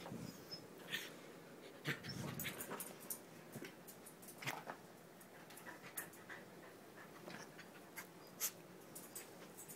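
A small curly-coated dog in bed covers making faint whimpering and breathing sounds, with scattered soft clicks and rustles. A somewhat louder low sound comes about two seconds in.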